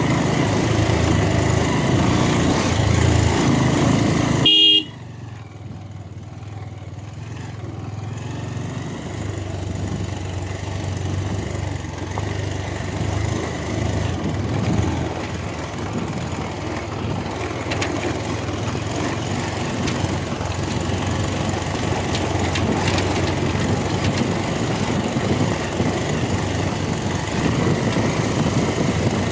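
Motorcycle riding along, engine and wind noise steady, with one short horn toot about four and a half seconds in. Right after the toot the sound drops off sharply, then the road noise slowly builds back up.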